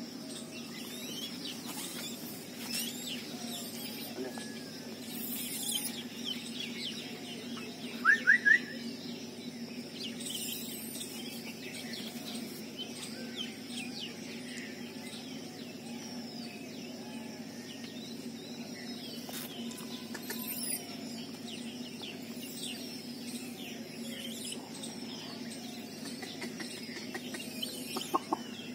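Birds chirping and calling throughout, over a steady low hum. About eight seconds in, three loud, short rising calls stand out, and a few sharp knocks come near the end.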